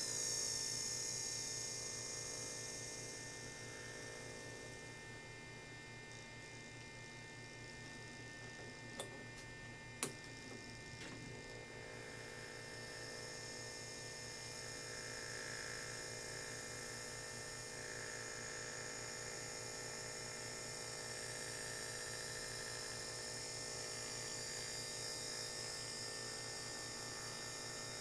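Small permanent-magnet DC motor whining as it is slowed down, its pitch falling at first. Two sharp clicks come about nine and ten seconds in, then the whine builds again as the motor runs back up with its polarity reversed.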